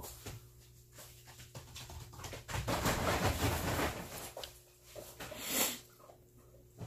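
Dogs panting and scuffling, a rough stretch of noise about two to four seconds in and a shorter burst near the end.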